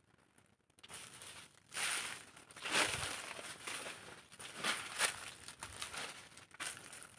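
Dry leaves crunching and rustling in irregular bursts, about one a second, as someone moves through dry leaf litter and dried banana leaves.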